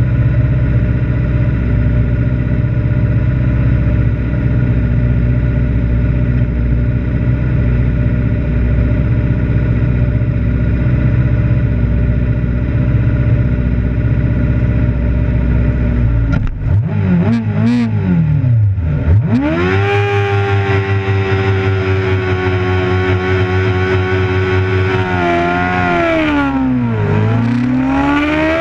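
Sport bike engine heard from on board, held at steady revs on the starting grid, then launching at the race start about sixteen seconds in: the pitch dips and climbs sharply, settles higher as the bike accelerates with rushing air, drops briefly near the end with a shift and climbs again.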